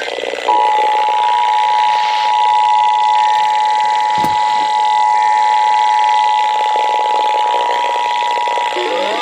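Emergency Alert System two-tone attention signal, the 853 Hz and 960 Hz tones sounding together, held steady for about eight seconds over radio hiss. It announces an incoming emergency alert, here a flood warning. Near the end, rising siren-like sweeps begin.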